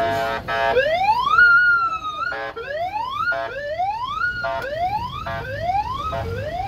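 Electronic vehicle siren giving repeated rising whoops, about six of them, each under a second long, with short horn blasts in between; a steady horn tone cuts off just before the first whoop.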